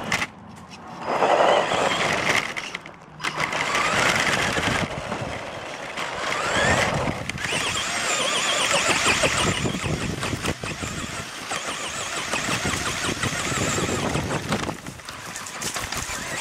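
Tamiya Super Hornet RC buggy driving, heard from a camera mounted on the car: its electric motor whines up in pitch again and again as it accelerates, over a steady rush of tire and ground noise.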